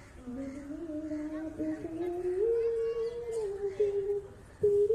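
A girl's voice singing a slow melody, holding long notes that slide up and down between pitches.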